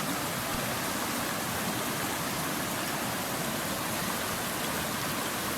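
Waterfall and stream water rushing steadily.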